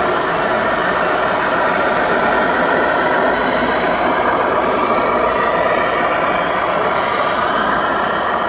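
Simulated diesel truck engine sound from a radio-controlled model Scania truck driving slowly past, steady throughout, over hall chatter. A brighter hiss joins about three seconds in.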